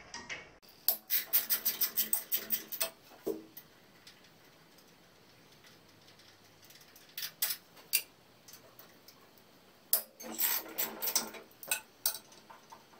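Ratchet wrench clicking as the bolts holding the jointer's cutterhead bearing blocks are loosened: a quick run of clicks, about seven a second, a few single clicks midway, and a second run near the end.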